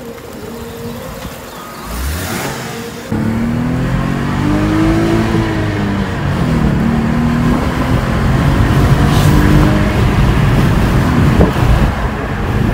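Lexus IS 250's 2.5-litre V6 accelerating, heard from inside the cabin, its pitch climbing and dropping back several times, with its primary catalytic converters removed. It gets louder about three seconds in.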